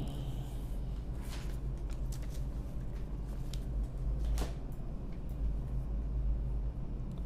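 Steady low drone of an ASD tug's diesel engines, with scattered clicks and knocks on top, the sharpest about a second and a half in and again about four and a half seconds in.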